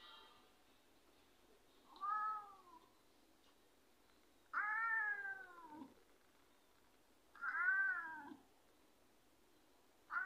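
Ginger tabby cat meowing repeatedly, begging for food at the table. The meows come about every two to three seconds, each rising then falling in pitch; the second is the longest and loudest, and a fourth begins near the end.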